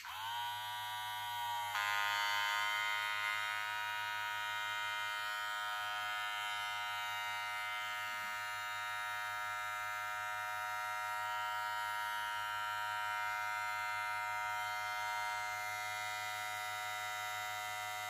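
Rozia all-metal cordless hair clipper running: its motor spins up as it starts, steps up in pitch and loudness about two seconds in, then holds a steady whine.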